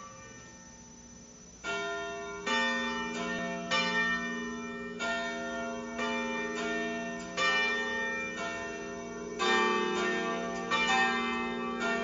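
Church tower bells pealing: several bells of different pitch strike at uneven intervals and ring on over one another, starting about a second and a half in.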